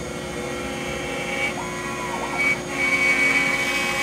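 CNC router, a DeWalt compact router spindle, whining steadily as a 1/4-inch roughing endmill cuts a pocket in sinker mahogany at 0.17 inch depth and 96 inches a minute. Its tone shifts and gets a little louder partway through as the cut changes.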